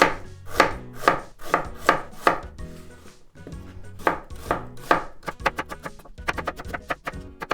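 Kitchen knife cutting hard raw quince into thin strips, each stroke ending in a sharp tap on the cutting board, about two cuts a second, with a short pause midway and quicker, lighter cuts near the end.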